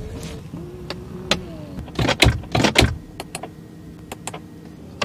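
Small electric motor in an Audi A8L whining in short runs, its pitch shifting as it starts and stops. A cluster of louder clicks and knocks comes about two seconds in, with lighter switch clicks after it.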